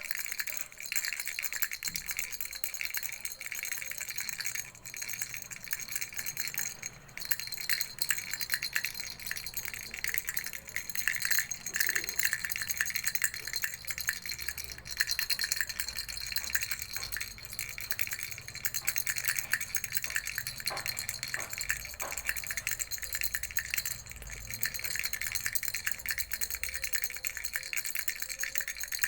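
Baby rattle shaken continuously: a dense, unbroken stream of small high clicks and rattling, with only brief pauses.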